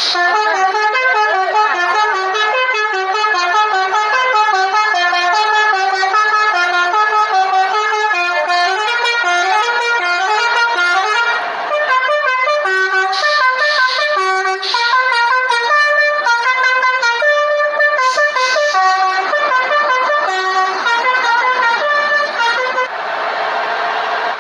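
Bus telolet multi-tone horn playing a quick tune of stepped notes that jump up and down. Near the end the tune stops and steady vehicle noise takes over.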